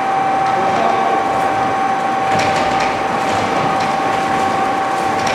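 Double-shaft shredder, driven by two 30 kW electric motors, running under load as its cutters tear through baled cardboard: a steady whine over dense grinding and crackling, with a few sharper cracks about two and a half seconds in.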